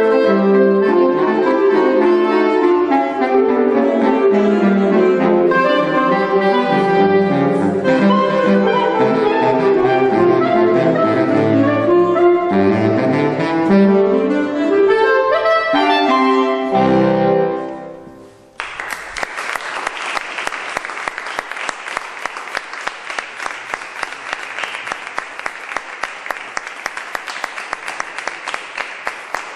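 A saxophone quartet plays the closing bars of a piece, ending on a final chord that fades out about 18 seconds in. The audience then breaks into steady applause.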